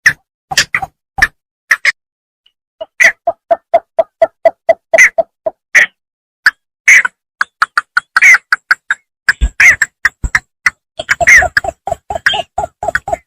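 Bittern ('bambangan') calling loudly: short, sharp calls repeated throughout, with two runs of quick, even, lower notes at about five a second, one a few seconds in and another near the end.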